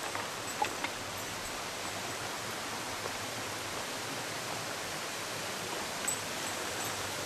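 Mountain stream rushing over rocks, a steady wash of water noise. A few light clicks come through briefly, twice near the start and once about six seconds in.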